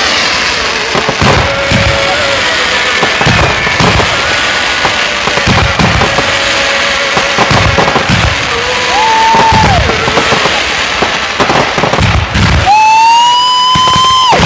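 Fireworks going off: a steady run of bangs and crackling. Whistling fireworks shriek among them, a short whistle about nine seconds in and a long, slightly rising whistle near the end.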